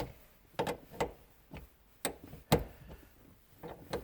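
Wrench working the nut on a car battery's positive terminal clamp: a run of irregular, sharp metal clicks and taps, the loudest about two and a half seconds in.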